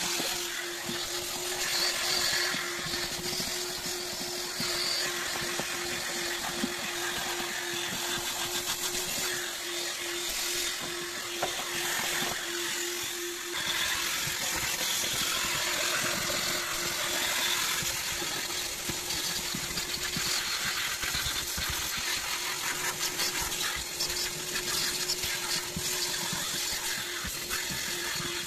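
Vacuum cleaner running steadily: a constant motor hum with a hiss of rushing air as its hose nozzle works over car floor carpet.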